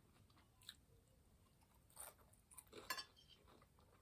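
Faint close-miked chewing of a taco, with a few soft, short crunches and mouth clicks, the clearest about three seconds in.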